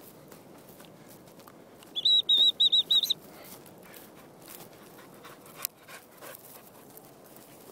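A quick run of about six loud, high, piping whistle notes lasting about a second, starting about two seconds in, over soft crunching footsteps in frosty grass.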